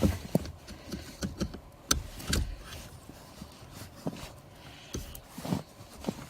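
Scattered clicks and knocks of a plastic dashboard trim panel being handled and worked loose, the loudest about two seconds in and again near the end.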